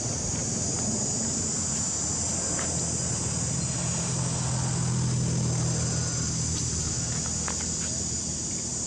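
A steady, high-pitched drone of insects, with a low motor hum underneath that swells in the middle and fades again. A few faint light clicks are scattered through it.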